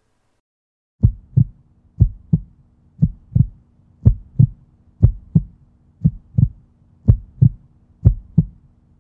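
A heartbeat-like double thump, lub-dub, repeating about once a second over a faint steady low drone, starting about a second in: an outro sound effect.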